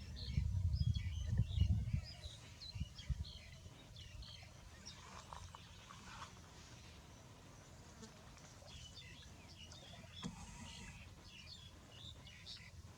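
Small birds chirping faintly throughout, many short high chirps. A low rumbling noise is loudest for the first two seconds, then fades out.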